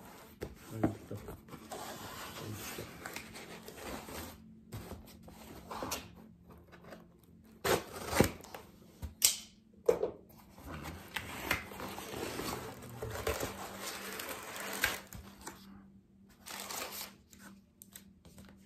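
A cardboard shipping box being opened: packing tape slit and torn with a box cutter, cardboard flaps pulled back, and tissue paper and a paper insert rustling. Several sharp knocks and snaps come between about eight and ten seconds in.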